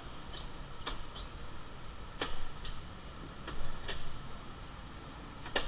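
Scattered light clicks and knocks, about nine, uneven in spacing, from a go-kart's body being handled and stepped over, over a steady low rumble.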